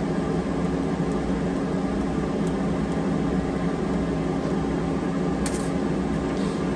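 Steady machine hum with a faint hiss, unchanging throughout, and a brief high tick about five and a half seconds in.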